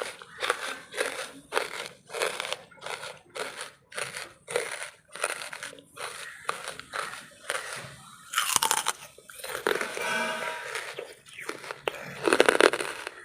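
A person chewing hard pieces of wood charcoal close to the microphone, crunching about twice a second, with louder bites a little past the middle and near the end.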